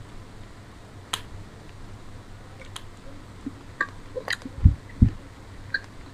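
Close-miked eating of paratha with chicken curry: a few sharp wet mouth clicks spread through, then chewing with two loud low thuds a little before the end.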